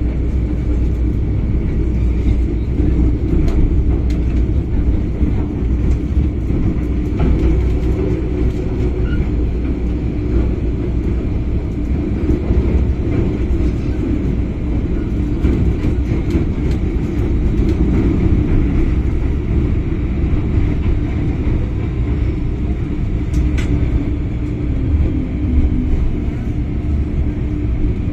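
MTR Kwun Tong Line M-Train in motion, heard from inside the carriage: a steady rumble of wheels on rail and running gear, with a faint high tone above it, as the train runs between stations and into the platform.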